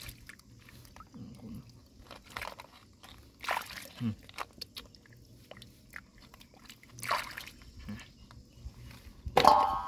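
Hands splashing and sloshing in a shallow rock pool while mussel shells click and crunch together as a handful is scooped up and lifted out, in a few short separate bursts, the loudest near the end.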